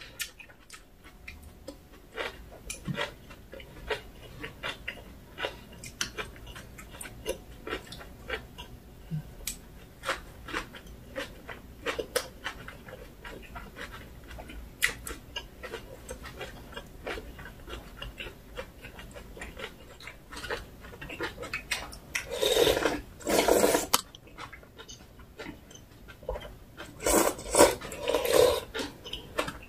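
Close-miked eating sounds: chewing of kimchi-wrapped rice rolls, with many small clicks of utensils and dishes. Two louder noisy stretches come about twenty-two and twenty-seven seconds in.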